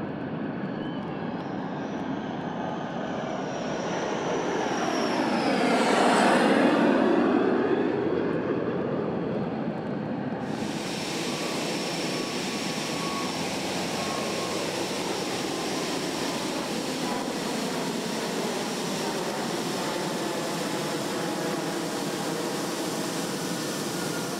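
Boeing 787 Dreamliner jet engines passing close by on a takeoff roll, swelling to a peak about six seconds in and falling in pitch as the aircraft goes past. After an abrupt cut about ten seconds in, a steady jet engine noise with a faint whine from a 787 moving on the ground close by.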